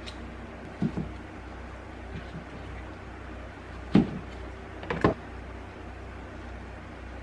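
Several short knocks over a steady low hum: a pair about a second in, the loudest knock about four seconds in, and another pair a second later.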